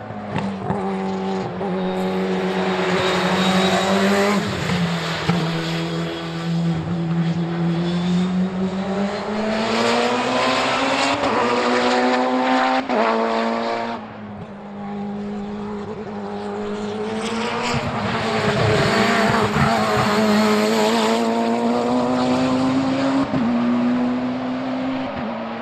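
Turbocharged Mitsubishi 4G63 four-cylinder engine of a hillclimb race car at full throttle. Its pitch climbs and drops back with each sequential-gearbox upshift as the car passes. The note dips about halfway through, swells to a second loud pass, then fades as the car pulls away.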